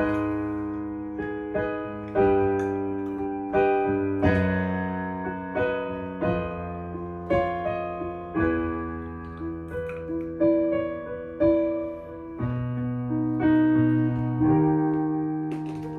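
Solo piano playing a chordal introduction: chords and single notes struck about once or twice a second, each fading away before the next.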